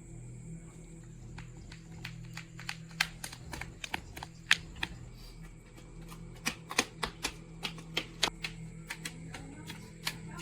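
A run of sharp, irregular taps and clicks, sparse at first and then coming in quick clusters, over a steady low hum.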